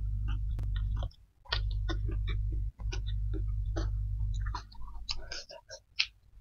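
Eating by hand: fingers squish and gather cooked rice and side dishes with sticky clicks over a low, dull rumble. The rumble stops a little before the end, leaving sharp wet mouth clicks and chewing as a handful goes into the mouth.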